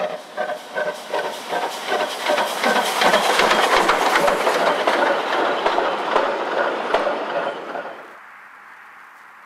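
Steam locomotive hauling a passenger train, its exhaust beating about three times a second as it approaches, then passing close with the locomotive, tender and coaches rattling and clicking over the rail joints. About eight seconds in the sound cuts off suddenly to a faint steady noise.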